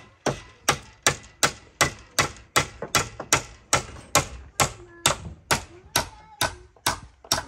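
Hammer nailing wooden roof beams together: a steady run of sharp blows on wood, about two and a half a second.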